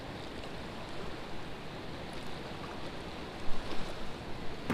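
River water flowing steadily past the bank, with a few brief thumps about three and a half seconds in.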